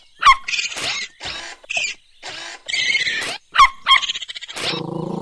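Cartoon raccoons hissing and squeaking at a dog in a string of short bursts, some squeaks sliding quickly in pitch. A low, steady buzzing sound starts near the end.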